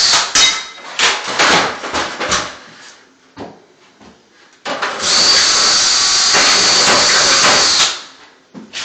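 Power drill boring holes for shelving: a run that stops just after the start, a few knocks and scrapes, then another steady run of about three seconds starting around five seconds in and stopping sharply near the end.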